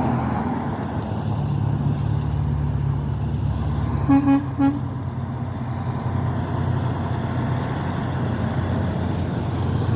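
Road traffic passing, with the steady low drone of a heavy vehicle's engine, and two short vehicle horn toots about four seconds in.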